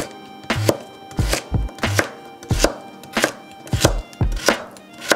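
Kitchen knife slicing a carrot into half-moons on a wooden cutting board: an even series of sharp knocks of the blade on the board, about one and a half a second.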